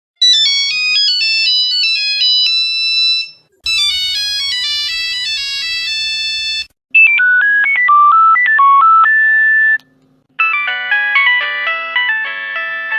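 Nokia mobile phone ringtones played one after another: four short melodies of quick electronic notes, each a few seconds long, with a brief break before the next one starts.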